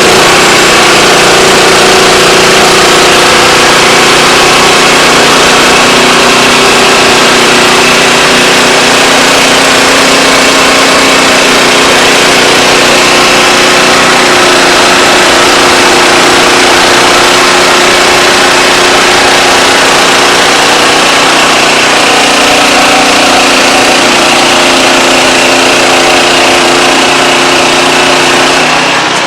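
Wood-Mizer LX25 portable band sawmill running steadily and loudly, its engine under load as the band blade saws through a log. The sound eases off in the last second or so.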